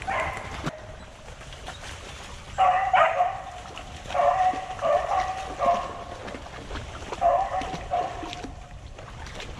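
Deer-hunting hounds baying over a freshly downed deer: a string of about five drawn-out bawls, each under a second long.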